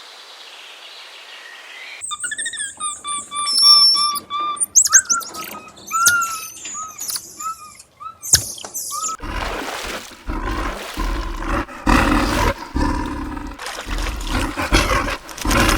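Birds chirping and calling in quick, short whistled notes after a faint hiss, then a louder rough noise with a deep rumble for the last several seconds.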